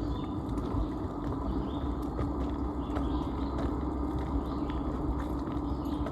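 Footsteps crunching along a rocky forest trail at a steady walking pace, over a low rumble of wind on the microphone.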